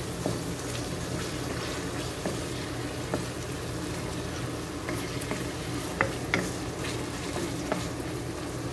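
Chicken strips, onion, garlic and ginger sizzling in oil in a wok while a wooden spatula stirs them, scraping and knocking against the pan now and then.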